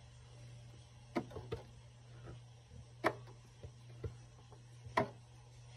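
Viking Husqvarna 1100 electronic sewing machine switched on, with a steady low hum and a few irregular sharp clicks and knocks from its needle mechanism as stitch programs are selected and the needle shifts position.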